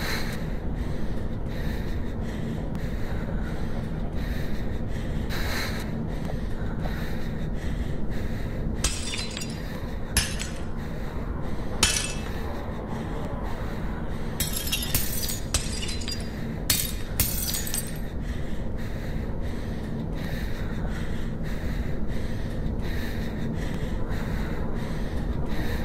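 Glass shattering and shards clinking, in a run of sharp cracks between about nine and eighteen seconds in, over a steady low rumble.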